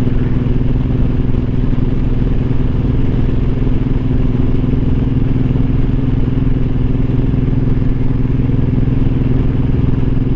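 2013 Suzuki Boulevard M90's 1500 cc V-twin running steadily at cruising speed, heard from the rider's seat, its engine note holding an even pitch with no revving.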